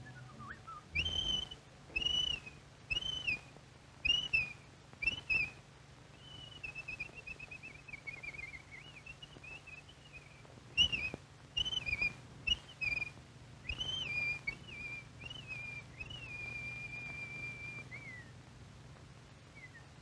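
Cartoon bird calls done by whistling: a run of short arched whistled notes about one a second, then a wavering falling trill, then more short notes, ending in a long held whistle that dips at the end.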